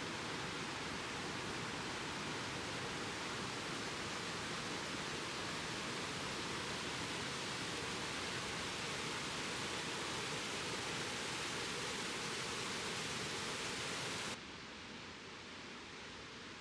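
Peričnik waterfall's falling water, a steady even rush with no breaks. About fourteen seconds in it cuts abruptly to a quieter, duller rush.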